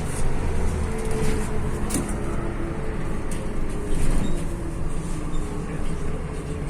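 MAZ-105 articulated city bus heard from inside the passenger cabin while driving: a steady engine hum and road noise, with a few short rattles about two, three and four seconds in.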